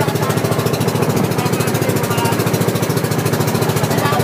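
Inboard engine of an outrigger bangka boat under way, running steadily with a rapid, even chugging, over a hiss of water and wind.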